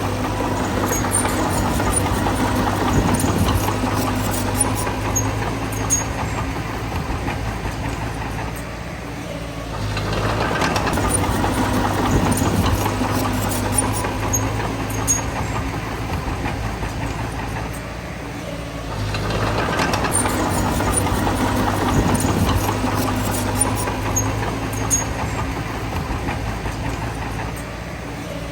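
Bulldozer's diesel engine running under load with scattered metallic clanks from the tracks, swelling and easing in a repeating push cycle about every nine seconds.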